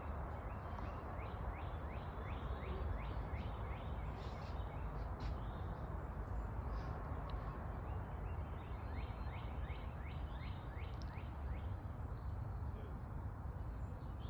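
Outdoor ambience: a steady low rumbling noise, with a bird calling in two runs of quick rising chirps, about three a second.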